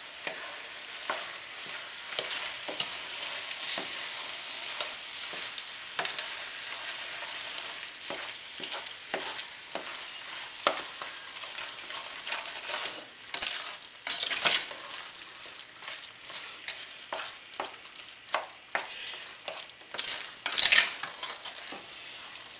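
A spoon stirring and mashing thick sweet potato mixture in a stainless steel pot, with repeated scrapes and clinks against the pot over a steady hiss. Louder scrapes come a little past the middle and again near the end.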